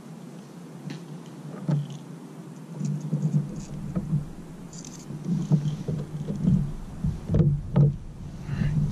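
Low, uneven rumble of wind buffeting the microphone, swelling about three seconds in. Over it come a few light knocks and clicks as fishing tackle is handled in the kayak, two close together near the end.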